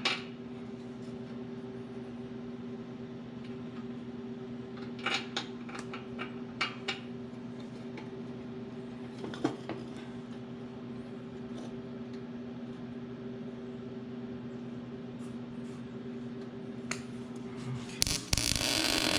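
Steady low electrical hum with a few light metallic clicks and taps. About 18 seconds in, a loud crackling noise starts and keeps going: arc welding around the bolt holes of a steel mower deck.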